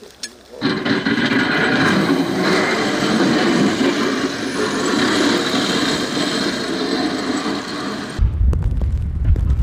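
A loud engine-driven machine running steadily close by, such as snow-clearing equipment, starting suddenly about half a second in; near the end it cuts off abruptly and wind rumbles on the microphone.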